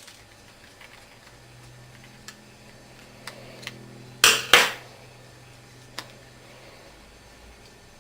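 Small metal clicks and clinks of a screwdriver working the handle screws out of an airsoft rifle's receiver, with two louder clattering knocks about four and a half seconds in as metal parts are handled.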